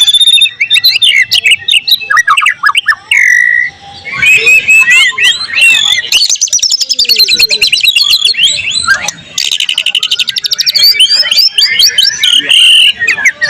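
White-rumped shama (murai batu) singing a loud, varied song of quick whistled chirps and phrases, broken twice by fast trills of rapidly repeated notes; a song packed with mimicked material of other birds such as cililin, cucak jenggot, canary and lovebird.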